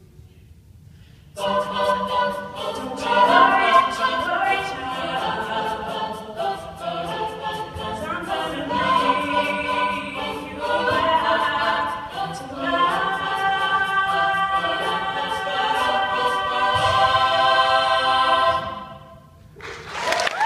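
A cappella choir singing in close harmony, unaccompanied. The singing comes back in after a short pause about a second and a half in and dies away shortly before the end.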